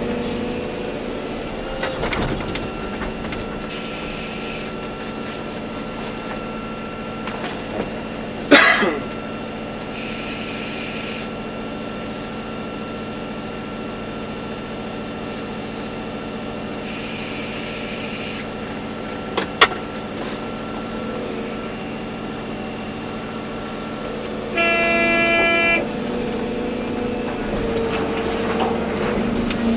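Volvo EC240B excavator's diesel engine running steadily, with a couple of sharp knocks, and a loud horn blast about a second long near the end.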